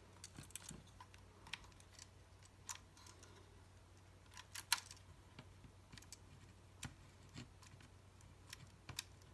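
Scattered small sharp clicks and taps at uneven intervals, the loudest about halfway through: small tools and camera parts being handled during work on a Nikon FM2 film camera's mechanism.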